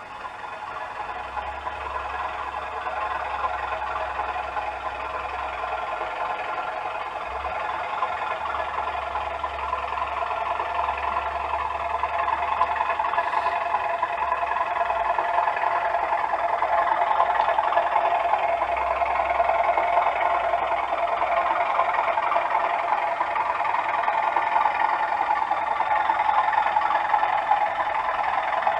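Model locomotive fitted with a DCC sound decoder running on a layout, its recorded engine sound playing from a small onboard speaker. It grows steadily louder over the first half, then holds level.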